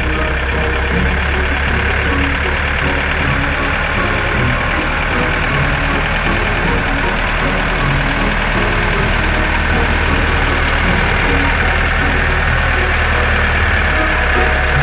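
Engine of heavy farm machinery running steadily, with a constant low hum and a dense mechanical noise above it.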